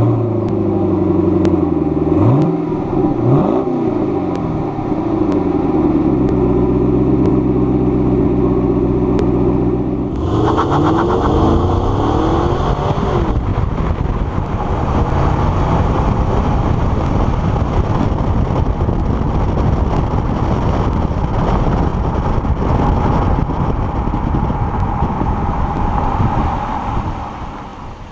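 2014 Chevrolet Camaro SS's 6.2-litre V8 exhaust idling just after a start, with two quick revs about two and three seconds in. After a cut, the car accelerates and drives on, its engine note mixed with road and wind noise, and it quiets near the end.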